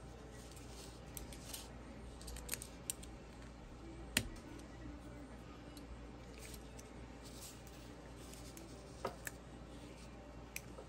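Faint metal-on-metal clicks and scraping from a small screwdriver working the extractor spring collar back over the extractors of a CZ 457 rifle bolt. The clicks are scattered, the sharpest about four seconds in and two more close together near nine seconds.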